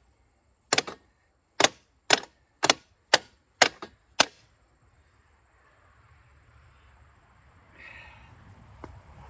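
Hammer blows, seven sharp strikes about twice a second, each ringing briefly, stopping about four seconds in; afterwards only faint background noise.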